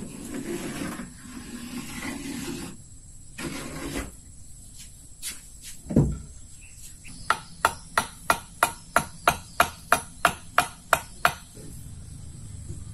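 Hammer striking wood in a steady run of about a dozen blows, roughly three a second, during wooden boat building. It is preceded by a few seconds of rough noise and one heavy thump.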